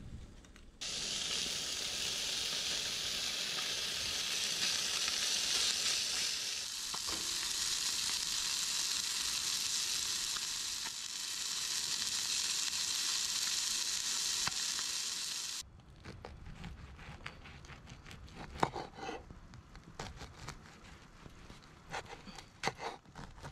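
Food sizzling in a hot frying pan, a steady hiss that starts suddenly about a second in and cuts off abruptly about fifteen seconds later. It is followed by scattered soft clicks and knocks.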